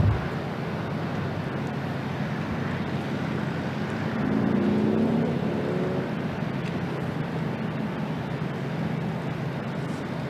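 Steady outdoor traffic rumble with a low hum. A short thump comes at the very start. About four seconds in, a motor vehicle swells louder and rises slightly in pitch for a couple of seconds, then fades back into the background.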